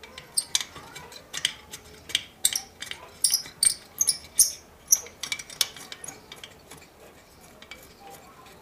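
Metal tools and small metal parts clinking and clicking irregularly, as in hands-on reassembly work on a small engine; the clinks are dense for the first six seconds or so, then thin out.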